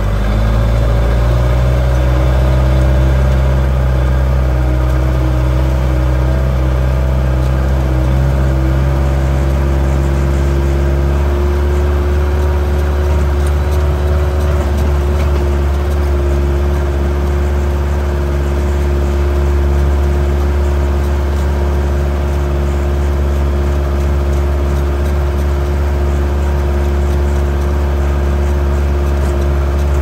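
Diesel engine of a JCB backhoe loader running steadily, its pitch creeping up a little over the first several seconds and then holding.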